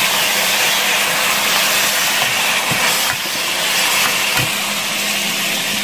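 Ground beef with chopped onion and green pepper sizzling steadily in a frying pan, with a few soft knocks of a spatula against the pan about halfway through.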